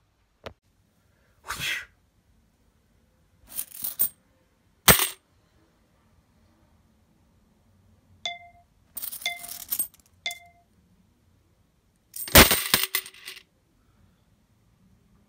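A series of separate clatters and clicks of small hard objects, with three short metallic dings about a second apart in the middle and a longer rattling clatter near the end.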